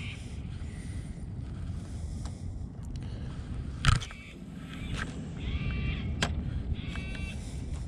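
Steady low wind rumble on a chest-mounted action camera, with one sharp click from the spinning reel being handled about four seconds in. In the second half an animal calls repeatedly in short, pitched cries.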